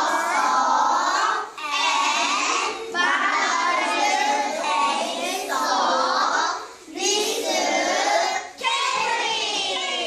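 Young children singing together in short phrases with brief breaks between them.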